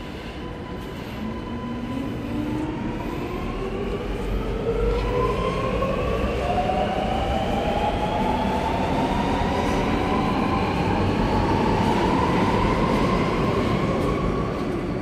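Alstom Metropolis metro train accelerating away from the platform. Its traction motors give a whine that climbs steadily in pitch, with several tones rising together, and the running noise grows louder as it gathers speed.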